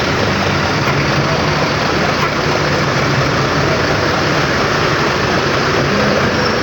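Tour bus diesel engine running with a steady low hum and a broad even noise as the bus pulls in.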